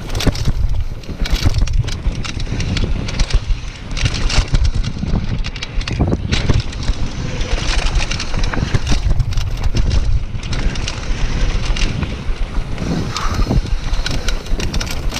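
Wind buffeting the microphone of a mountain bike descending a dirt trail at speed, with tyre noise on the dirt and frequent rattles and knocks from the bike over rough ground.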